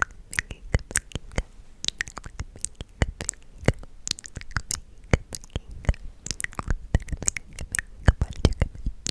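ASMR mouth sounds close to the microphone: quick wet clicks and smacks, several a second, in an uneven rhythm.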